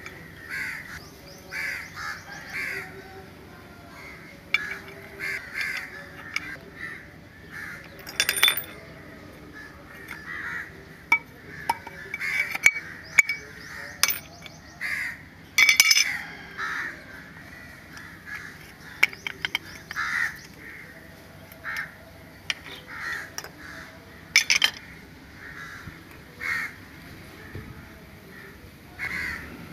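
Crows cawing over and over, with sharp metallic clinks and clicks of a wrench and loose parts on a stripped-down outboard powerhead, the loudest about a third and halfway through.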